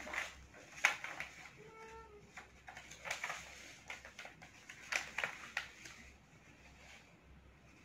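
A sheet of paper being folded and creased by hand, with scattered crisp rustles and creasing clicks. A brief pitched sound comes about two seconds in.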